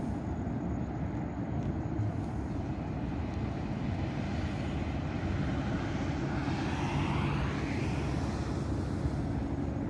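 Steady road-traffic rumble from the nearby road, with one vehicle passing and its pitch gliding, about two-thirds of the way through.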